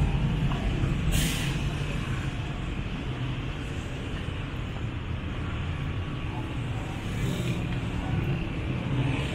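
City street traffic: motor vehicle engines running steadily. About a second in there is a short, sharp hiss, with a fainter one about seven seconds in.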